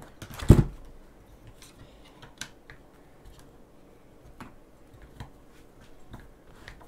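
Hand tools and plastic RC truck parts handled on a workbench: one sharp knock about half a second in, then scattered light clicks and ticks as a hex driver works the screws.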